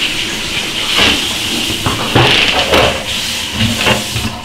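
Steady hiss of running tap water, with a few sharp knocks and clatters, cutting off abruptly just before the end.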